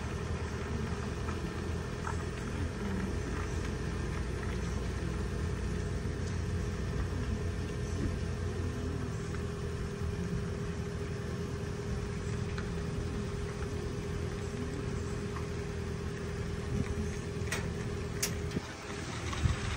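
A car running with a steady low engine and road hum. Two sharp clicks about two seconds before the end.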